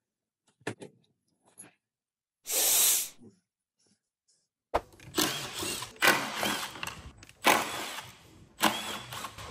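Cordless impact driver run in short bursts on the bolts of a plug-in hybrid's high-voltage battery pack, with a few clicks near the start and about four bursts in the second half.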